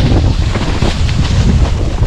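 Wind buffeting the microphone: a loud, uneven rumble with a hiss over it, rising and falling in gusts.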